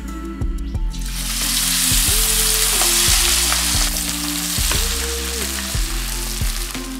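Marinated chicken 65 pieces deep-frying in hot sesame oil in a steel pan. The oil sizzles loudly and foams up, with the hiss swelling about a second in as the pieces go in.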